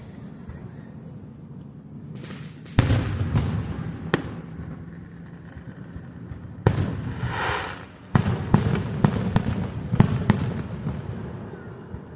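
Aerial fireworks exploding: three separate booms with a rumbling tail, then a quick run of sharp bangs over about two seconds near the end.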